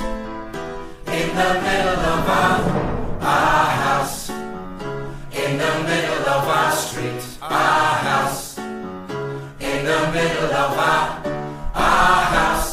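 Background music: a pop song with sung vocals, its loudness swelling and dipping about every two seconds.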